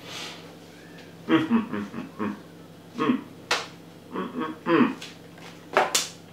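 A man tasting food with his mouth full, making short appreciative 'mmm' hums in two spells, with a couple of sharp snaps from his hands in between.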